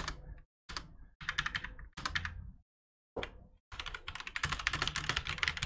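Typing on a computer keyboard: a few short runs of keystrokes, a pause of about half a second near the middle, then a fast, steady run of keys from about four seconds in.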